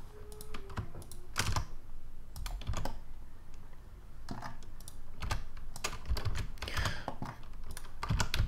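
Computer keyboard keys and mouse buttons clicking, in irregular clusters of a few clicks at a time.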